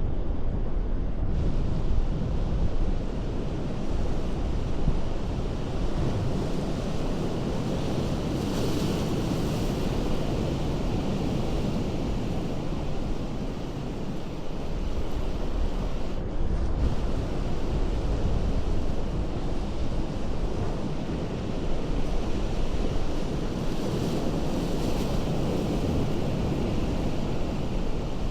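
Ocean surf washing against a rocky shore in a continuous rushing wash, swelling into a brighter hiss twice, about a third of the way in and near the end, as waves break.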